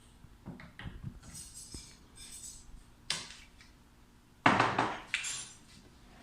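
Hard objects being handled and set down: a run of small knocks and clinks, then a sharper knock about three seconds in and a louder clatter about four and a half seconds in.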